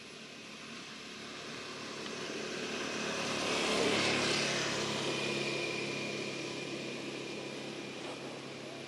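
A propeller aircraft flying over: a steady engine drone that swells to its loudest about four seconds in, then slowly fades.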